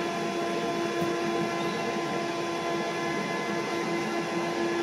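Steady machine hum: an even whirring noise carrying a few constant tones, with no change in level.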